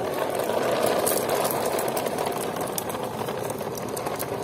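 A small motor running steadily, with a light clicking rattle over it.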